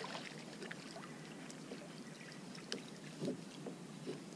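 Light water sloshing and splashing in shallow water as a small pejerrey is reeled in and lifted out on a spinning rod, with a few short sharp ticks and a brief louder splash-like sound about three seconds in.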